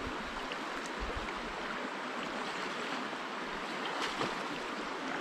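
Shallow brook running over rocks: a steady rushing and babbling of water through riffles.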